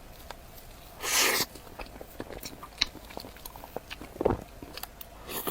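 Close-miked biting into a small chocolate mille-feuille: a short crisp crunch about a second in, followed by soft chewing with small mouth clicks.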